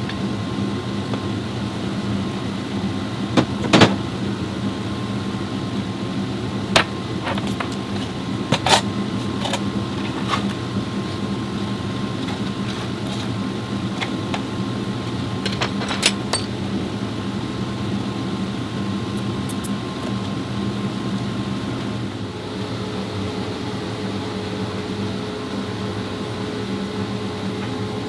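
2015 Chevrolet Spark with a repaired CVT transmission driving on a test drive, heard as a steady engine and road hum inside the cabin, with a few sharp clicks and knocks. It runs without trouble, with the earlier loss of power and lurching cured.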